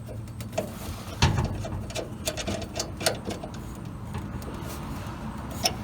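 Irregular light clicks and taps from small metal parts being handled and adjusted, with a sharper click near the end.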